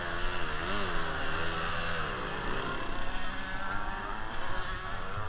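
1996 Kawasaki KX250's single-cylinder two-stroke engine running at low revs. Its pitch wavers up and down through the first half as the throttle is worked, then holds steadier.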